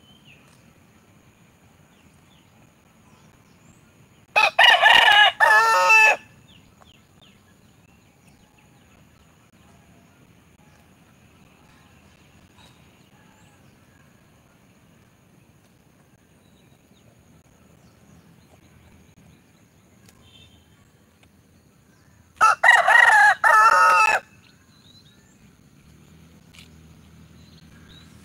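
Rooster crowing twice. Each crow lasts about two seconds, the first about four seconds in and the second about eighteen seconds later.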